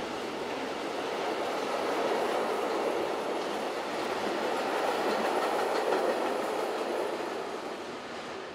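A train rolling past on the tracks: a steady rumble of wheels on rail that grows a little louder until about six seconds in, then fades toward the end.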